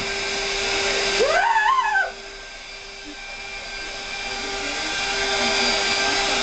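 Vacuum cleaner running, its motor giving a steady whine under a rushing noise. About a second in, a short high squeal rises and falls over it; about two seconds in the rushing drops away, then builds back up over the next few seconds.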